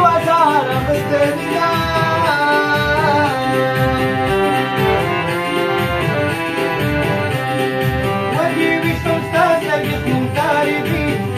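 Harmonium playing held chords and a melody over a steady low drum beat, accompanying a Pashto tappay/ghazal. A man's singing voice comes in briefly near the start and again from about eight seconds in.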